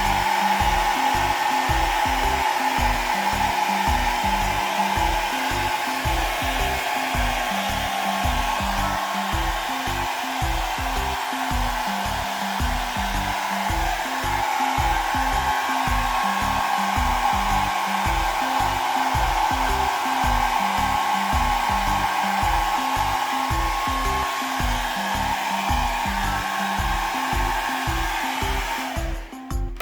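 Hand-held hair dryer blowing steadily while a wet kitten is dried after a bath; it cuts off just before the end.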